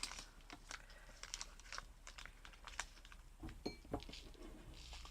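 Faint crinkling and rustling of a powder sachet being handled and torn open, with scattered small clicks and a light ringing clink about three and a half seconds in.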